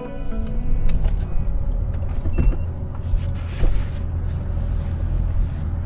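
Inside a 4WD driving on a dirt road: a steady low rumble of road noise with scattered rattles and knocks, and a short squeak from a storage box in the vehicle about two and a half seconds in.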